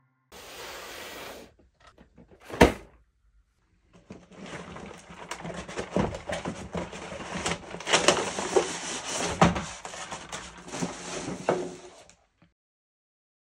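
Hands handling and opening a cardboard toy train box: rustling and scraping of cardboard and packaging with many small clicks and knocks, after a single sharp knock about two and a half seconds in.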